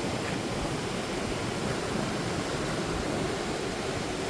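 Ocean surf breaking and washing in, a steady wash of waves.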